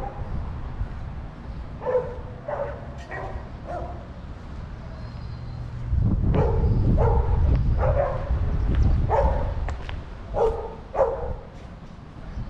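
A dog barking in runs of a few barks at a time, over a low rumble that swells for a few seconds in the middle.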